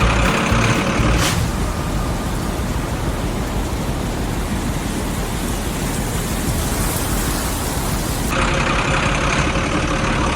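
A heavy vehicle's engine running steadily: an even, noisy rumble with no clear pitch.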